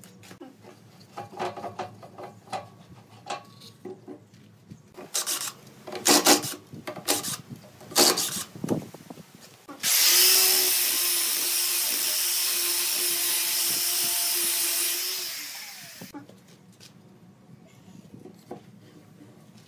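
Hands handling a segmented wooden vase at a wood lathe: scattered knocks and rubbing of wood on wood and metal. About ten seconds in, a loud steady hiss with a low hum under it starts, runs about six seconds and tapers off.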